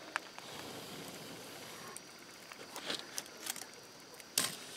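Wood-ember fire crackling under meat grilling on bamboo skewers: a few sharp pops, the loudest about four and a half seconds in, over a faint steady hiss.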